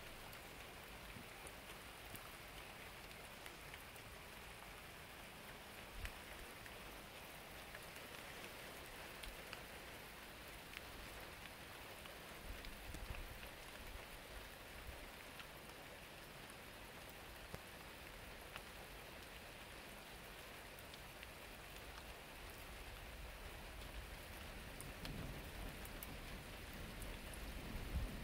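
Steady rain falling, with scattered small drip ticks; a low rumble of thunder starts to build over the last few seconds.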